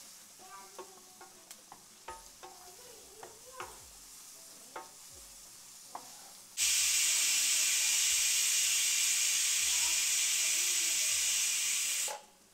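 Onions frying in oil, stirred with a spatula in small clicks and scrapes. About six and a half seconds in, a stovetop pressure cooker whistle lets off a loud jet of hissing steam for about five seconds and cuts off suddenly: the rice inside has come up to pressure.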